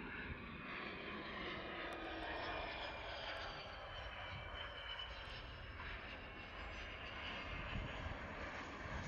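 Hawker 900XP business jet landing, its two Honeywell TFE731 turbofans whining at approach power through the flare and touchdown. The whine is steady with a gently falling pitch as the jet passes.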